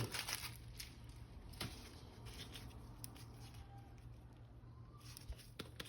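Faint, scattered clicks and light rustles from small plastic toy parts being handled, over a low steady hum.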